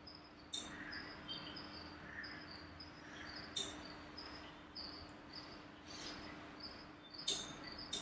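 A few sharp glass clinks, a second or more apart, as a conical flask is swirled under a burette tip during a titration, over a faint repeating high chirp and a low steady hum.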